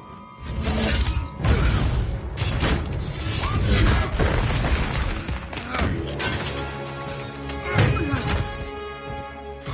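Dramatic film soundtrack: music under a string of loud crashing and shattering impact effects.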